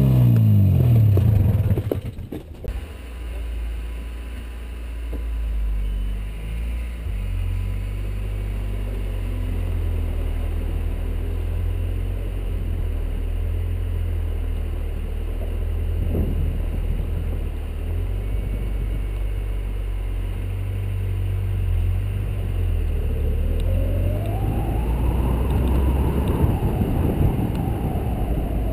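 For the first two seconds, an Arctic Cat Jag Deluxe 440 snowmobile engine winding down in pitch. Then a car heard from a camera on its roof: a steady low rumble that rises in pitch and loudness near the end as the car gets moving.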